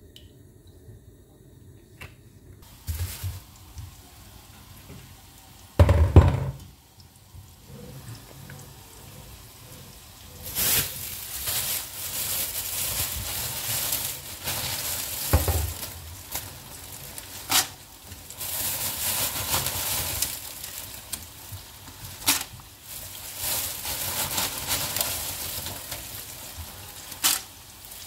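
Food sizzling in hot oil in a frying pan, in stretches that start and stop, with a few sharp clicks between them. A loud knock about six seconds in, before the sizzling starts.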